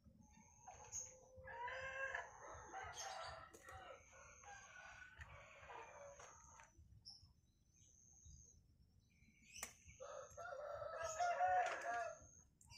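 A rooster crowing twice, once about a second and a half in and again, louder, near the end, each crow lasting about two seconds.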